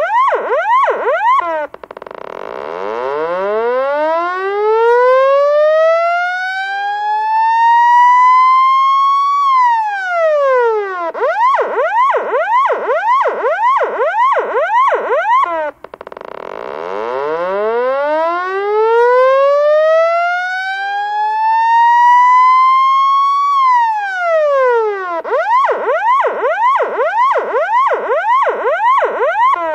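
Loud police siren alternating between a fast yelp of about three quick rising sweeps a second and a slow wail that climbs for about seven seconds and then drops quickly. The cycle plays twice, each time broken by a brief cut-out before the wail starts.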